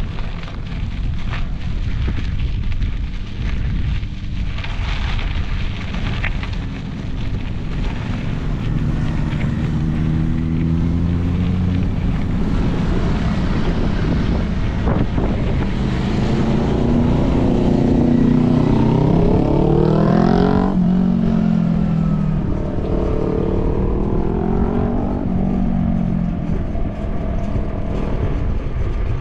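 Motorcycle engines revving through the gears, their pitch climbing and falling again and again; the loudest rises to a peak about twenty seconds in, then drops sharply as it passes. Underneath is a steady rumble of wind on the microphone.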